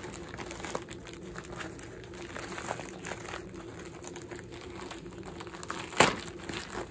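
Plastic padded mailer being opened and handled: crinkling and rustling of the plastic packaging, with one sharp, loud crackle about six seconds in.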